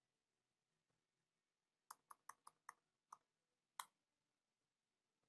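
Faint computer keyboard keystrokes as a word is typed: a quick run of five key clicks about two seconds in, then two more spaced out.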